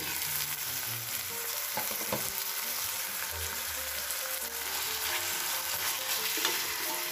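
Raw beef and beef skin sizzling in hot oil with sautéed onions, garlic and ginger in a stainless steel pot, stirred with a metal spoon: the meat being seared in the aromatics at the start of a braise.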